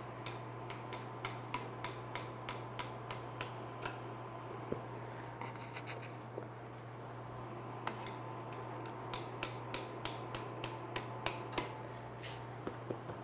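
Portable induction burner humming steadily with a faint high whine, under a run of quick, even clicks, about two or three a second, that pause for a few seconds in the middle and then resume.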